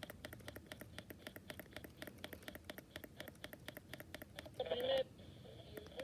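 Rapid light clicking, about six clicks a second, as a radio is stepped through in search of a station. About three-quarters through, a brief pitched snatch of sound is heard, followed by a faint high steady tone.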